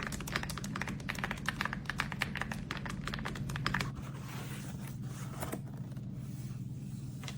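Rapid plastic clicking of mechanical keyboard keys for about four seconds, then only a few scattered clicks, over a steady low hum.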